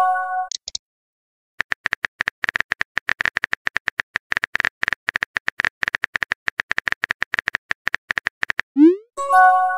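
Chat-app sound effects: a chime of a few stacked tones as a message appears, then a rapid run of on-screen keyboard tap clicks for about seven seconds as a reply is typed. Near the end comes a short rising swoop and another chime as the message is sent.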